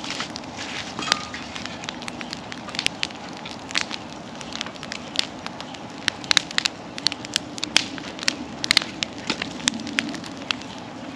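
Wood bonfire crackling and popping, with many sharp irregular snaps over a steady low hum.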